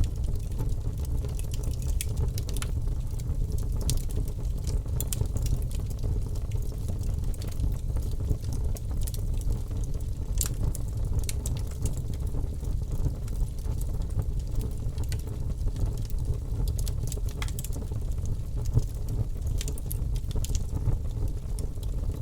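Bonfire burning with a steady low rumble of flame and frequent sharp crackles and pops of burning wood.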